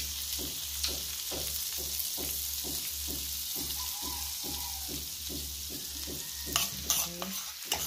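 Melted butter with chopped garlic and ginger sizzling and bubbling in a metal pot. A low hum pulses about four times a second underneath, and a few sharp clicks come near the end.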